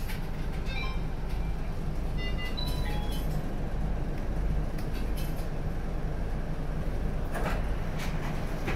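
Isuzu Erga city bus heard from inside the cabin, its diesel engine and drivetrain making a steady low drone as the bus pulls away and drives on. A brief series of electronic beeps sounds about two to three seconds in, and a short clatter comes near the end.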